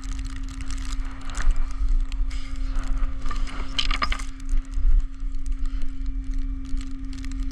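Metal tow hooks and chains clinking and rattling in short irregular clicks as they are unhooked from a vehicle, over the steady hum of the flatbed tow truck's running engine.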